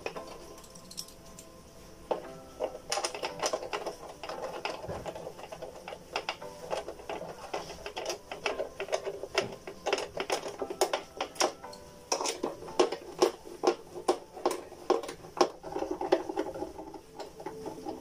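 Quick irregular metallic clicks and taps of screws and small parts being handled and fitted on a washer-dryer's sheet-metal heater fan housing. The clicking gets busier about three seconds in.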